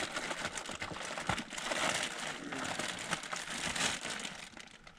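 Plastic carrier bag rustling and crinkling as hands rummage through it for army ration packs, the rustle easing off near the end.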